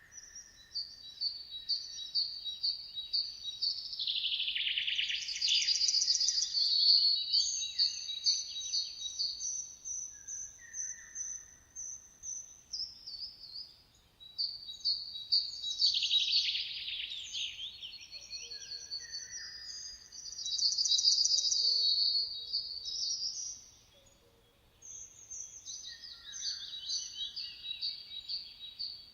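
Songbirds singing, several overlapping: rapid chirping trills and repeated high notes with downward-sweeping whistles, swelling into louder bursts of song a few times.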